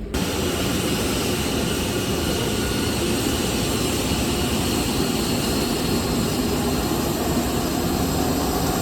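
Steady engine and airflow noise of a passenger jet, heard from inside the cabin. The noise starts abruptly and holds an even level throughout.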